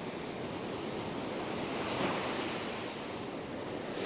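Ocean surf breaking and washing up the sand, swelling louder about halfway through.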